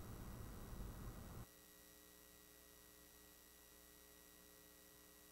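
Near silence with a faint steady electrical hum. A faint background noise cuts off abruptly about a second and a half in.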